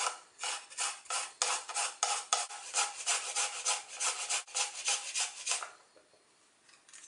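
Fresh ginger root being grated on a fine metal rasp grater (zester), a quick run of scraping strokes about four a second that stops near the end.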